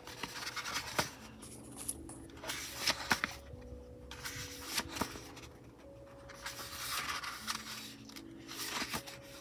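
Pages of a thick photobook being flipped by hand: soft paper rustling and the light slap and click of pages turning over, several times.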